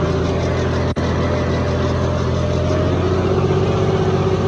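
John Deere 5050D three-cylinder diesel tractor engine, its fuel injection pump modified, running steadily under load while pulling a 20-disc hydraulic harrow through the soil. There is a very brief break in the sound about a second in.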